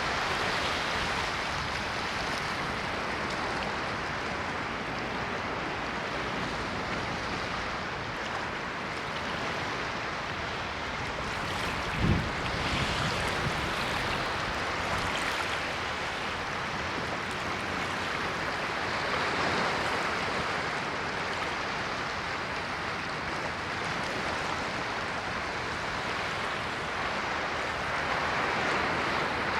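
Ocean waves washing ashore in a continuous rush that swells and eases every few seconds. A brief low thump about twelve seconds in is the loudest moment.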